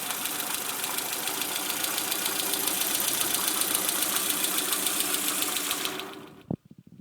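Peugeot 306 engine running with a fast, even ticking over its hum, a suspect noise that the owner places on the right side of the engine, below the rocker cover. About six seconds in the engine dies away, with a single knock as it stops.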